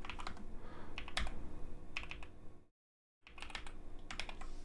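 Typing on a computer keyboard: quick runs of keystroke clicks, with a break of about half a second midway.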